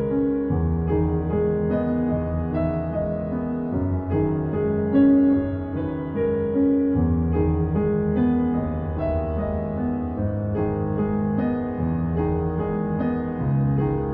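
Background music: a gentle piano piece with notes played over sustained low bass tones.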